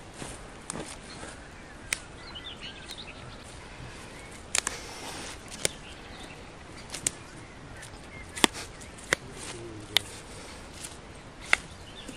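Flower stems snapping as chamomile heads are picked by hand: about eight short, sharp snaps at irregular intervals over a low outdoor hiss. A few faint bird chirps sound about two to three seconds in.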